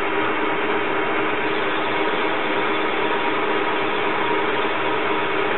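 Small CNC lathe running, its spindle turning a metal workpiece in the chuck: a steady mechanical whir with a couple of steady low tones from its drives, unchanged throughout.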